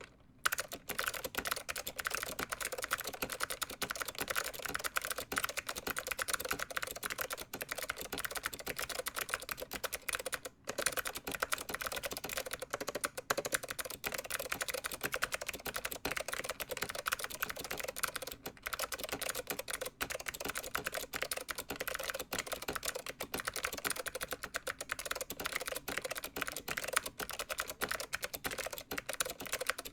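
Fast, continuous typing on a vintage Leading Edge DC-2014 keyboard with SKCM Blue Alps switches: dense clicky key presses, with one brief pause about ten seconds in.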